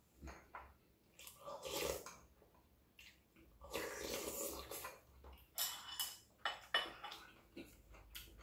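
A person eating at the table: mouth sounds of chewing and slurping, with a longer slurp from the bowl about four seconds in, then a few light clicks of chopsticks against dishes.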